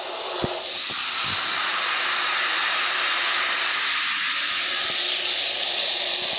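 Steady, loud hiss of an industrial cutting machine working 90-10 copper nickel, swelling over the first second or two and then holding even, with a couple of faint knocks near the start.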